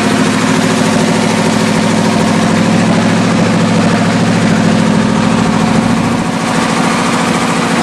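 Ford truck diesel engine running steadily just after a hard start, held at a raised speed of about 1500 RPM on the throttle pedal because it will not yet idle on its own.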